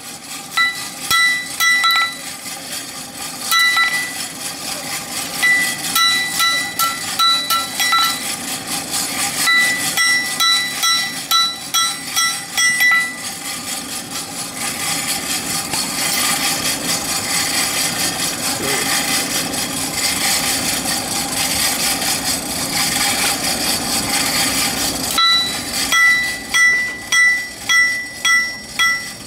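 Hand hammer striking a billhook blade on a steel anvil, each blow ringing, about two a second. The blows stop for about twelve seconds in the middle, where a steady rushing noise takes over. Hammering starts again near the end, on the glowing red-hot blade.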